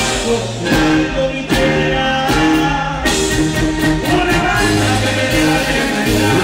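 Live corrido band playing amplified on stage: guitars over a tuba bass line and a drum kit.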